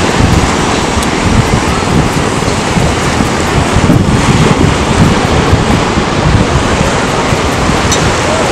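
Wind buffeting the microphone over small waves washing up on a sandy shore.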